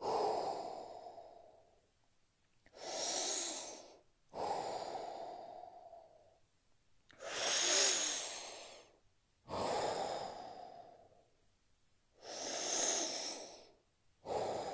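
A man's slow, deep breathing, audible in and out while he holds a forward-bend stretch. There are seven breath sounds in turn, alternating between a duller breath and a brighter, hissier one, with short pauses between them.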